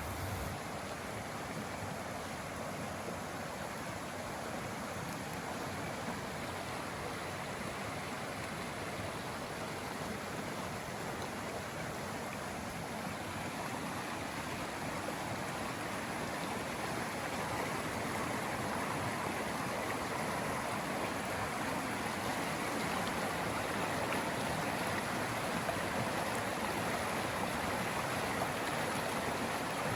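Swollen forest creek rushing over rocks and rapids: a steady, full-bodied rush of water, growing slightly louder toward the end.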